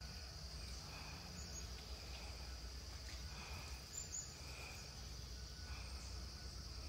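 Faint outdoor ambience: a steady high insect drone with soft chirps repeating every second or so, over a low rumble.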